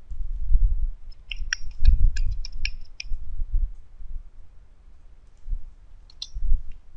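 Computer keyboard keys clicking as a word is typed: a quick run of about a dozen keystrokes over roughly two seconds, starting about a second in, then a couple more keystrokes near the end. Dull low thumps sound underneath.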